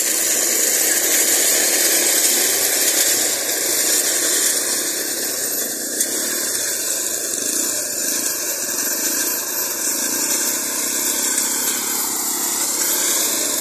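Small petrol engines of a self-propelled tracked brush cutter, a 200 cc cutting engine and a 125 cc drive engine, running steadily under load as its 75 cm cutting bar mows through ferns and undergrowth.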